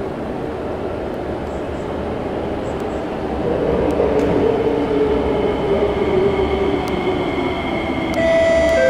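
SMRT C751B metro train pulling into the platform, its running rumble growing and a motor whine falling in pitch as it brakes to a stop. An electronic chime begins near the end.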